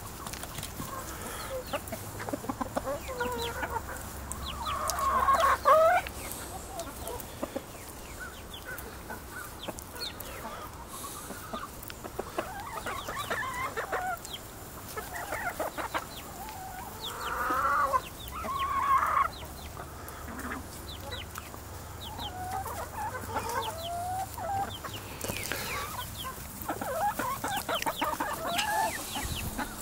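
A flock of backyard chickens clucking and calling as they feed, with a few longer rising calls among the clucks. Throughout are short sharp clicks of beaks pecking at food in a bowl.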